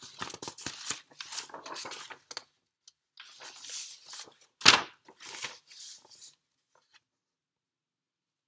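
Irregular rustling and scraping handling noises with one sharp, loud click partway through, then the sound cuts off to dead silence near the end.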